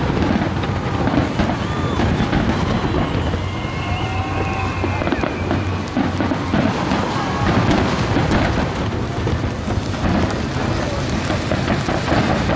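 Many large aerial firework shells bursting in close succession. The booms merge into a continuous rolling rumble, with crackling from the bursting stars.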